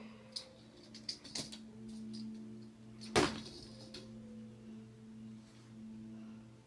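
Plastic Lego fidget spinner clicking and knocking, with one loud clatter about three seconds in, over a steady low hum.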